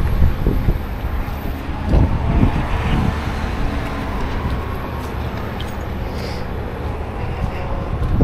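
A steady low engine hum over outdoor noise, with a few low thumps about two to three seconds in.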